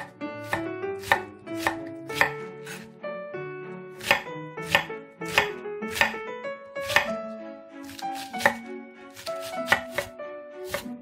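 Chef's knife shredding cabbage on a wooden cutting board: sharp knife strikes about two a second, with a brief pause about three seconds in. Background music plays underneath.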